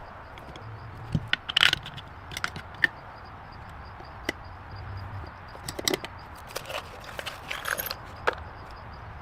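Scattered sharp knocks and clicks at irregular intervals over a steady hiss.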